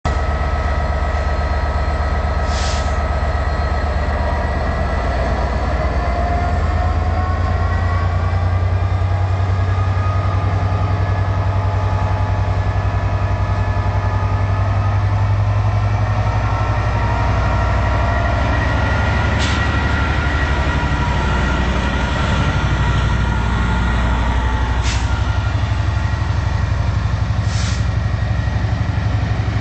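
Class 67 diesel locomotive's EMD two-stroke V12 engine working as the train pulls away: a loud, steady deep drone with a high whine above it that drifts slowly in pitch. Four short sharp clicks stand out, the first about three seconds in, the rest in the last third.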